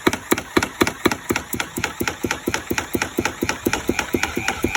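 Homemade drill-driven power hammer running: a small sledgehammer striking in a fast, even run of blows, about six a second.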